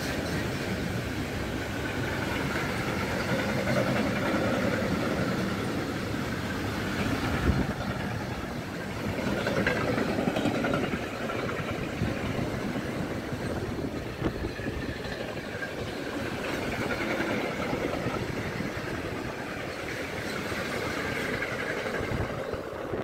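A train of empty car-transporter freight wagons rolling past at speed: a steady rumble of steel wheels on rail, with a continuous clatter of wheels over joints and a wavering high ringing from the wheels.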